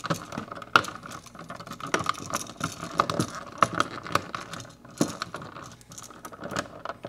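Irregular clicking and rattling as a duplex receptacle and its wires are pushed into a plastic electrical box, the metal mounting strap and screws knocking against the box.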